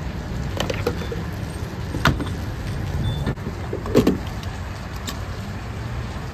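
Fuel pump nozzle handled and pushed into a vehicle's filler neck: a few plastic-and-metal clicks and knocks, the loudest about four seconds in as the nozzle goes in, over a steady low rumble.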